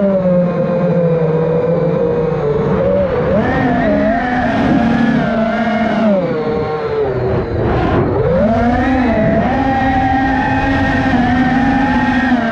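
FPV quadcopter's brushless motors and propellers whining, heard close from the drone's own camera. The pitch rises and falls with the throttle, sags deeply about seven seconds in, then climbs back to a steady high whine.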